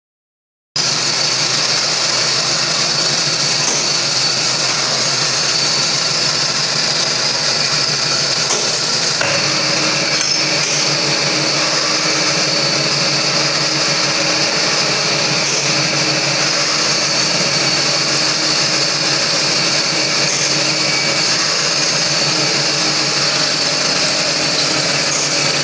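Automatic lathe running, turning brass parts under a flood of cutting oil: a steady machine noise with a constant high whine and a low churning. The sound shifts about nine seconds in.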